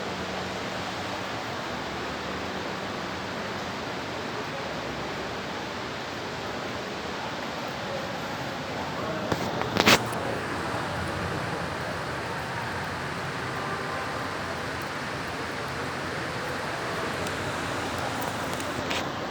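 Heavy rain falling as a steady hiss, with a sharp knock about halfway through and a fainter one near the end.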